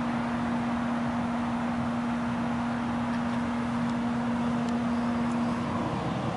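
Steady running noise of a parked car with its electrics on, heard from inside the cabin, with a steady hum that cuts off about six seconds in.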